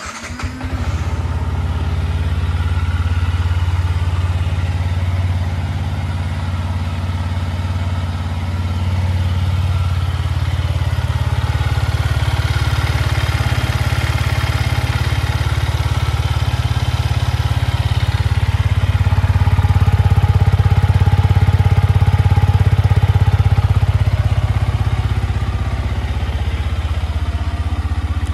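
Yamaha MT-125's single-cylinder four-stroke engine fires up on the electric starter and settles into a steady idle. It grows a little louder for a few seconds about twenty seconds in.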